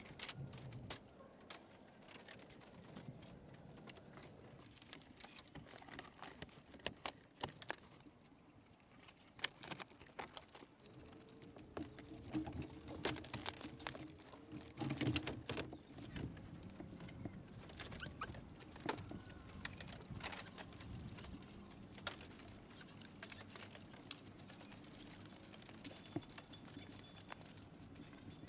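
Scattered light clicks and knocks of bamboo being handled as louvered bamboo window shutters are opened, the knocks coming thicker about halfway through.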